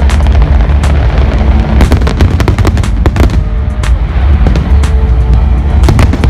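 Aerial fireworks going off in a rapid, irregular string of sharp bangs and crackles over a constant deep rumble, with loud music playing at the same time.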